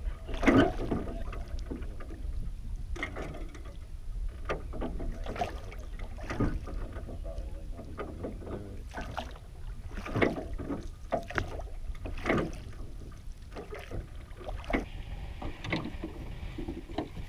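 A rowboat being rowed: oar strokes knocking in the oarlocks and dipping into the water at irregular intervals of a few seconds, over a low steady wind rumble on the microphone.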